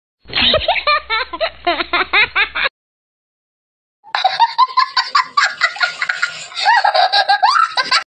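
Two bouts of laughter, the first about two and a half seconds long and the second, after a silent gap of over a second, about four seconds with pitch sliding up and down; each starts and cuts off abruptly.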